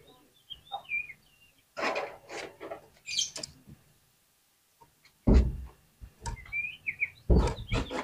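Oriental magpie-robin (kacer) singing: short whistled, gliding notes mixed with harsh, scratchy notes. Loud harsh bursts come about five seconds in and again near the end.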